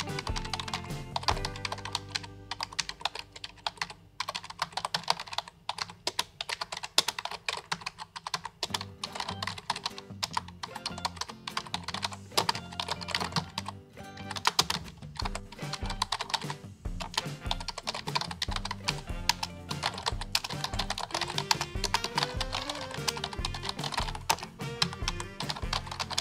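Rapid typing on a computer keyboard, a dense run of keystroke clicks, over background music with a steady beat.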